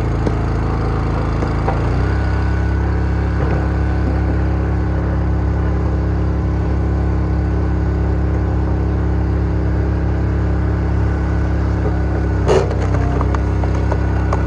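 Engine powering a Wolfe Ridge Pro X log splitter, running steadily. Near the end there is a single sharp crack as a log splits on the four-way wedge.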